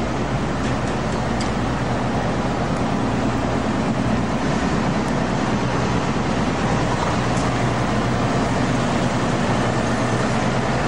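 Steady city street noise at night: a constant hum of traffic with no distinct events standing out.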